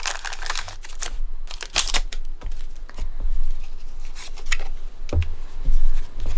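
Pokémon trading cards being handled: a run of irregular light clicks and taps as cards are shuffled and moved about in the hands.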